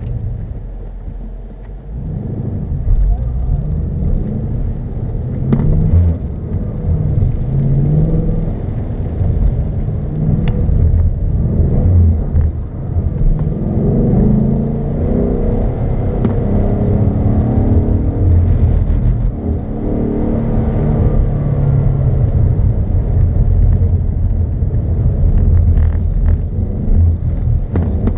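2015 Ford Mustang GT's 5.0-litre V8 engine being driven hard through an autocross course, its pitch rising and falling as the driver accelerates and lifts off between cones. It dips briefly about a second in, then picks up again.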